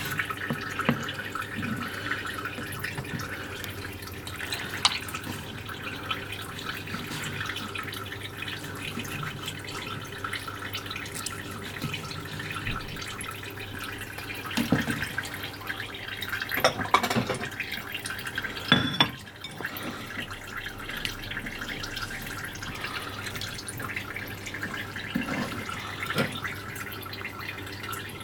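Wet kitchen handling sounds: a knife slicing raw sea cucumber on a plastic cutting board, with water dripping over a low steady hum. A few sharper knocks and clinks come in the second half.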